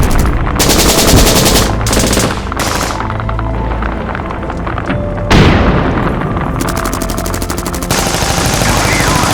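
Added war sound effects: several bursts of rapid machine-gun fire, with a louder blast about five seconds in, over a steady low background soundtrack.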